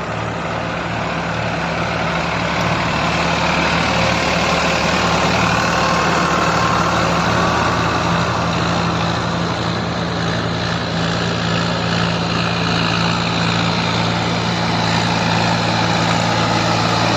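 Tractor engine running steadily with a low, even hum and a broad hiss over it, growing a little louder about four seconds in.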